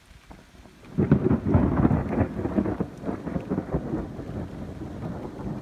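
A thunderclap: it breaks in suddenly about a second in, with a loud crackling peak, then rumbles on for several seconds and slowly fades.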